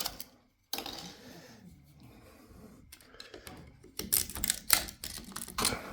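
Sharp clicks and snaps of 3D-printed plastic support material being broken off a large print, scattered at first and then coming thick and fast from about four seconds in.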